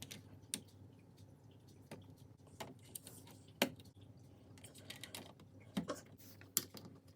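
LEGO bricks being handled and pressed together: irregular small plastic clicks and taps, the sharpest a little past halfway.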